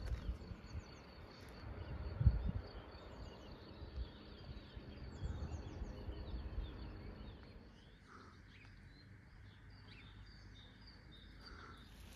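Outdoor ambience: birds chirping on and off over a steady high insect trill, with low rumbling and one low thump about two seconds in.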